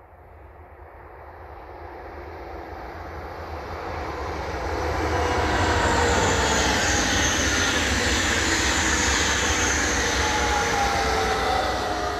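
Spanish high-speed electric train passing at speed. A rush of air and wheel noise builds over about five seconds to a loud, steady sound. Whining tones fall in pitch as the cars go by, and the sound eases slightly near the end.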